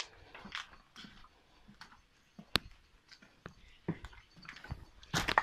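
Scattered footsteps and knocks on loose debris and broken clay roof tiles, with a single sharp click about halfway and a louder clatter near the end.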